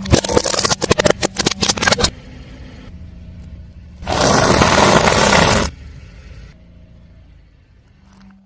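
Car tyre rolling over and crushing brittle objects: a rapid run of sharp crackling crunches for about two seconds, then a loud steady crushing, scraping noise starting about four seconds in and lasting a second and a half. The car's engine runs low underneath.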